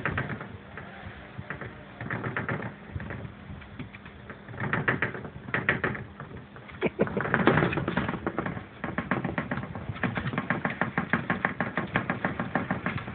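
Rapid rattling and clattering of loose household objects shaken by an earthquake. It comes in uneven clusters of knocks at first, then turns into a fast, steady run of rattling clicks about two-thirds of the way in.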